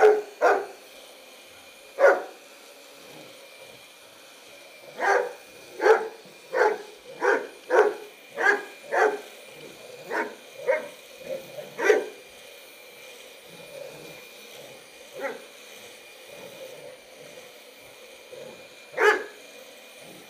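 Bernese Mountain Dog barking at a vacuum cleaner it dislikes: a couple of barks at the start, then a quick run of about a dozen barks roughly one every half second, and single barks later on.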